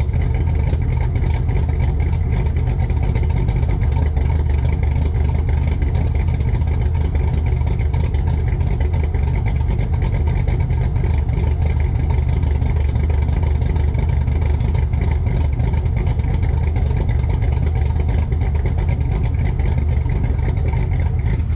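Chevrolet LQ9 6.0-litre V8 with an aftermarket Norris camshaft idling steadily after a cold start, with a deep exhaust rumble.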